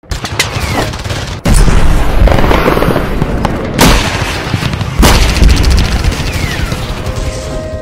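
Battle sound effects for a military-themed logo intro: gunfire and heavy booms over a low rumble, with three big hits about one and a half, four and five seconds in.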